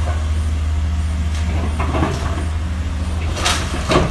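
Heavy demolition machinery running steadily with a low diesel rumble while a house is torn down, with a few knocks and crunches of debris.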